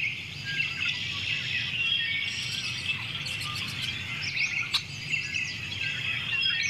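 Several birds chirping and calling over one another, with quick rising and falling notes, over a steady outdoor background. A single sharp click about two-thirds of the way through.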